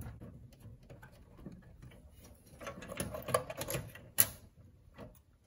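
Scattered clicks and small plastic rattles of wiring-harness connectors being pulled off a pinball machine's CPU board and the board being handled. The clicking is busiest a few seconds in, with one sharp click just after.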